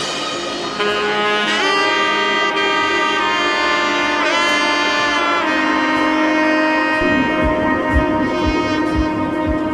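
Background music: a sustained melodic lead with sliding pitch bends, joined by a steady low beat about seven seconds in.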